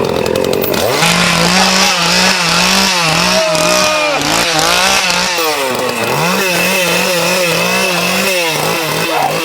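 Small two-stroke chainsaw engine revved up and down over and over, starting about a second in.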